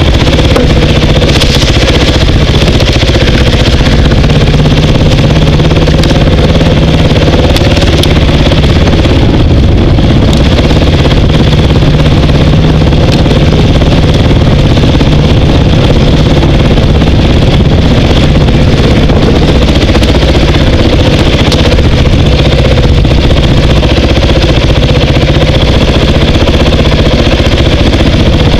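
Dirt bike engine running loud and steady with little change in revs, with scattered knocks and clatter from the bike over rough ground.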